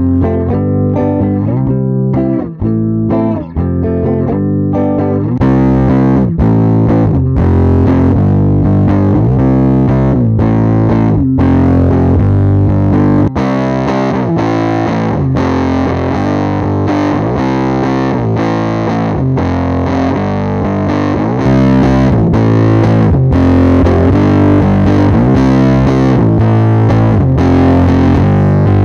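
Electric guitar played through a Fuzz Face Mini fuzz pedal, recorded direct, a run of distorted notes and chords. About five seconds in the tone turns thicker and brighter, and it gets louder again later on.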